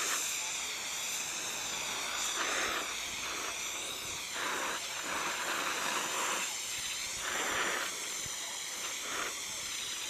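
Gas torch flame hissing steadily as it heats a soldering copper, swelling briefly several times.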